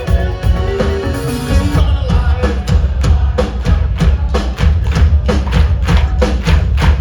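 Rock band playing live through a concert PA. Sustained chords give way about two seconds in to a fast, steady drum beat of about four hits a second over heavy bass.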